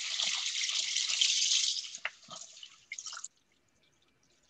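Tap water running over the detached head of a LumiSpa facial cleansing brush as it is rinsed; the flow stops about two seconds in, followed by a few drips and splashes.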